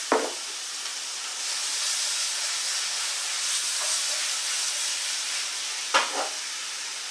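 Food sizzling in a hot Copper Chef frying pan on a gas burner, a steady hiss that grows louder about a second and a half in. There is a brief knock at the start and another about six seconds in.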